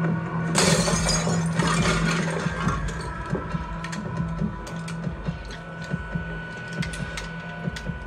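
A glass display case shatters, with breaking and falling glass for about two seconds. Then come scattered small metallic clicks of revolver parts being handled and fitted together, over a low steady hum.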